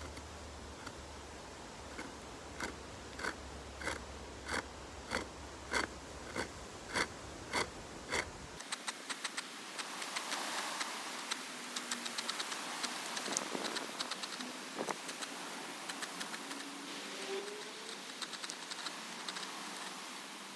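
Small hand saw cutting the ember notch into a sycamore bow-drill hearth board: about eleven even strokes, a little under two a second. After an abrupt change in the sound about eight seconds in, a denser run of fine scratching and ticks follows.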